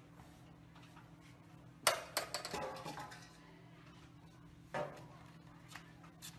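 A basin clattering on pavement twice, about three seconds apart, as a man sweeps up with a broom; the first clatter rings on for about a second. A low steady hum lies underneath.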